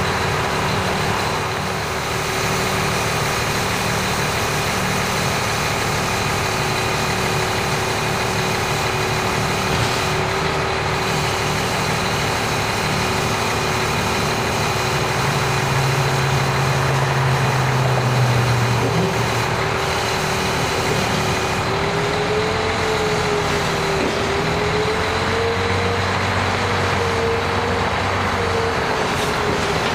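Diesel engine of a Mack off-road truck running steadily, driving the hydraulics that fold a Schwing concrete pump boom. A steady whine runs over the engine noise and wavers up and down in pitch over the last several seconds.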